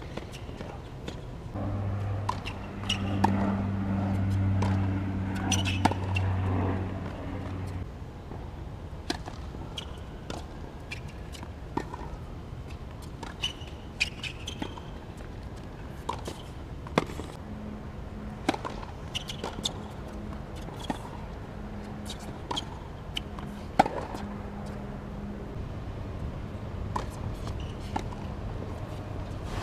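Tennis ball struck back and forth with rackets in a rally on a hard court, giving sharp pocks roughly every second, along with ball bounces and footsteps. A steady low hum is heard for the first several seconds.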